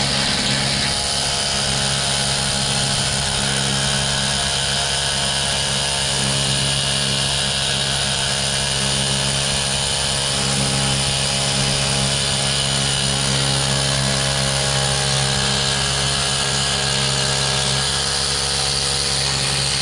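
Hand-held pneumatic paint-chipping tool running steadily against painted steel bolt heads, knocking the paint off them.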